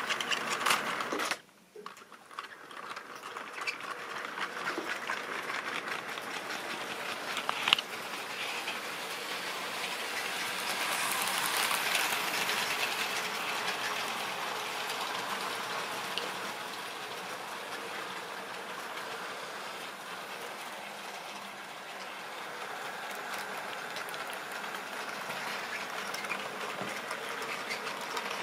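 Model railway trains running on the track: a steady rolling clatter of small wheels on rails and points, with motor hum. It is broken by a brief drop-out about a second and a half in, then builds to its loudest near the middle as a train passes close, with one sharp click about eight seconds in.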